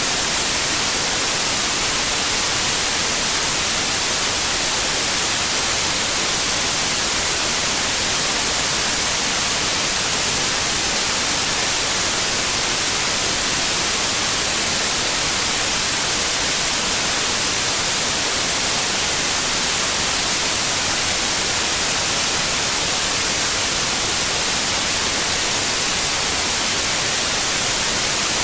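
Steady white noise: an even, unchanging hiss spread across the whole range, brightest in the highs, like TV static.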